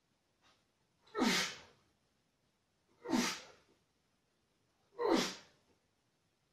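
A man breathing out sharply and forcefully three times, about two seconds apart, once with each repetition as he works a dumbbell in seated overhead triceps extensions.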